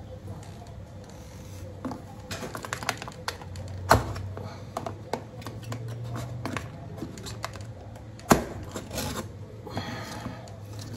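Hand tool and hands working close to the microphone: scattered light clicks and taps, with two sharp knocks about four and eight seconds in, over a low steady hum.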